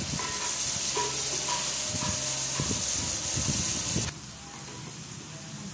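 Sliced onions sizzling in hot cooking oil in an aluminium pot while being browned, with a wooden spatula scraping and stirring them. The sizzle cuts off suddenly about four seconds in.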